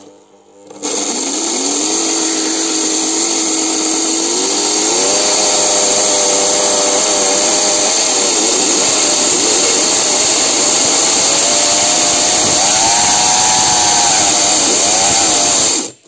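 Homemade saw's washing-machine motor starting up and driving a chainsaw chain: a loud rushing run with a whine that climbs in pitch in steps and wavers, then cuts off suddenly near the end. Its uneven running is what the builder puts down to the motor heating up.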